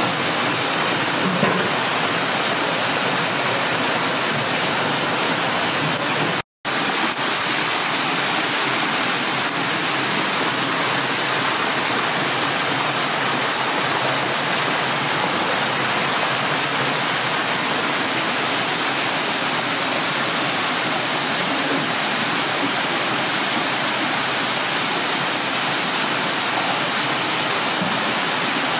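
Steady rush of water pouring through a fish grader's flexible hoses and churning in the basins, with a brief dropout about six seconds in.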